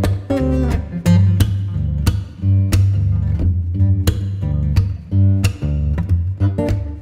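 Background music: strummed acoustic guitar over a bass line and a steady beat.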